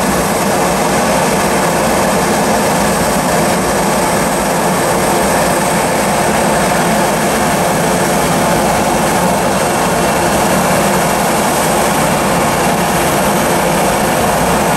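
Airbus A321 jet engines at takeoff thrust, a steady rushing noise as the airliner makes its takeoff roll and climbs away.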